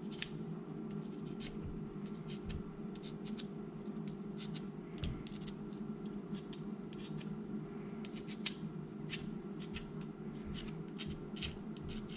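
Hand file rasping over cured epoxy on the frayed end of a carbon-fiber drone arm, in short, irregular strokes, about one to three a second, over a steady low hum.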